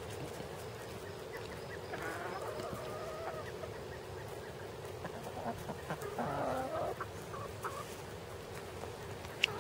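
Chickens clucking softly, with a few quiet calls about two seconds in and again about six seconds in.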